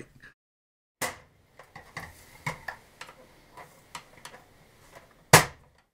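LED shop light fixture being handled against 3D-printed plastic brackets: a few light taps and clicks, then one loud sharp click about five seconds in as the light snaps into a bracket.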